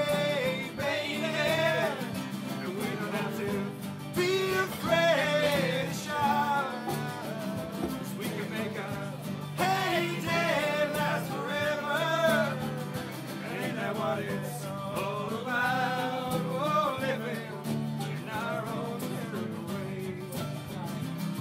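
Live acoustic session music: strummed acoustic guitars and a bass line under a melody that slides in pitch.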